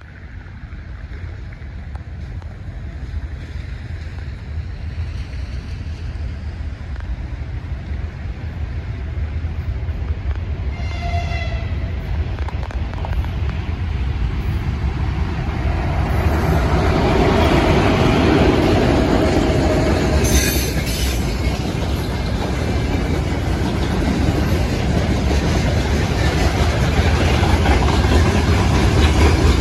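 2TE116 twin-section diesel locomotive hauling a freight train approaches and passes, its diesel engines' low rumble growing steadily louder. A short horn blast sounds about eleven seconds in. Loaded freight wagons then clatter past on the rails.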